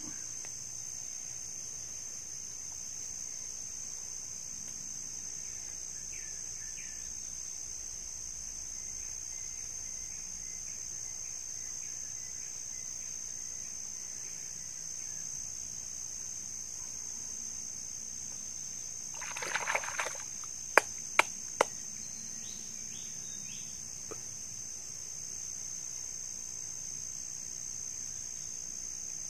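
Insects drone in a steady, high chorus throughout. About two-thirds of the way in there is a brief rustle, then three sharp clicks in quick succession.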